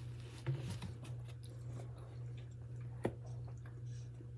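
Quiet chewing of a mouthful of food, with a few small clicks of mouth or utensils, over a steady low hum.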